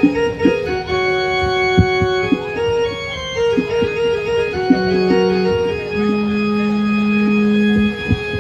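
Electronic keyboard playing held notes on an organ voice, a few notes at a time, with occasional short drum strikes between them, mostly in the first half.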